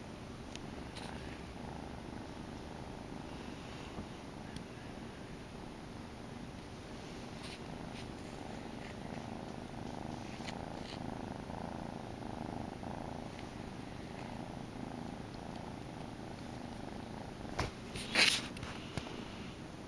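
Grey domestic shorthair kitten purring steadily, close up. Near the end a few brief, loud rustling knocks break in.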